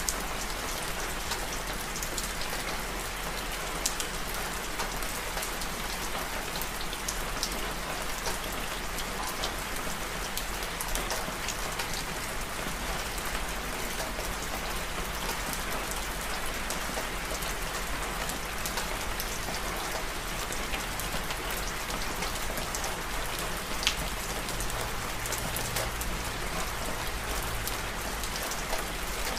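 Steady rainfall, an even hiss with scattered sharper drop hits, a couple of them louder.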